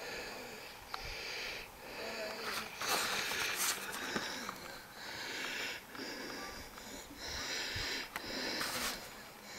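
A person breathing heavily and wheezily close to the microphone, hissing in and out every second or two.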